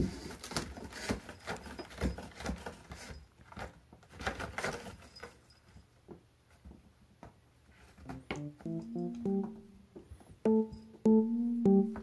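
A cat scrabbling and scraping on a corrugated cardboard scratcher while it plays with a wand toy: a knock at the start, then a run of scratchy scrapes and taps. About two-thirds of the way in, light piano background music comes in and becomes the loudest sound.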